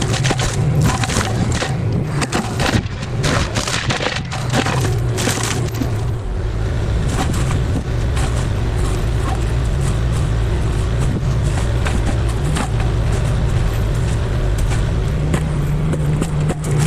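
Forestry mulcher's diesel engine running steadily while the mulching head chews into wood, with rapid sharp cracks and splintering over the first few seconds that give way to a steadier grinding.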